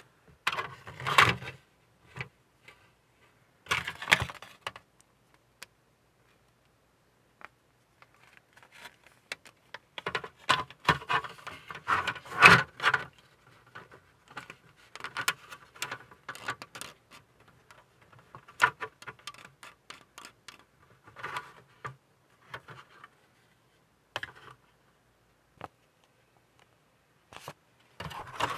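Small plastic model-kit parts handled and fitted by hand: light clicks, taps and scrapes as a gun turret is turned in the fingers and pressed into the plastic hull, in scattered clusters with silent gaps between.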